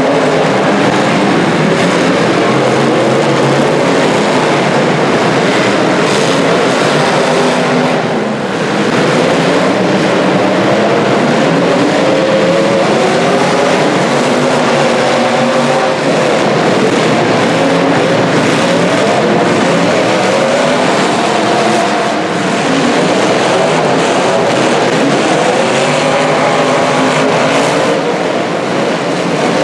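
Several demolition derby car engines revving at once, their pitches rising and falling continuously and overlapping into a loud, steady din.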